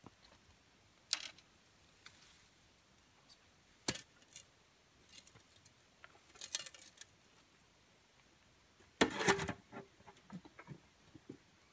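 Scattered clinks and scrapes of a shovel working soil in a wheelbarrow. The loudest is a half-second scraping clatter about nine seconds in.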